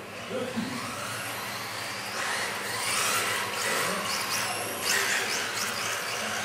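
Radio-controlled model cars' motors whining, the pitch rising and falling over and over as the cars speed up and slow down around the course.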